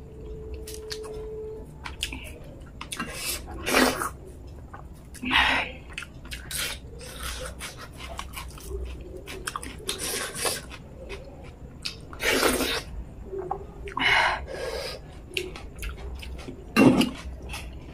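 Close-miked mukbang eating: wet chewing, lip smacks and clicks of the mouth and hand in soft dhido and curry, broken about five times by loud, sharp breaths through the mouth.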